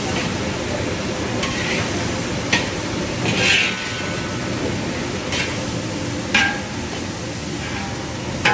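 Long-handled metal spatula scraping and knocking against a large wok as shredded cabbage and carrot are stir-fried, with a few sharp clanks and a rasping scrape over a steady frying hiss.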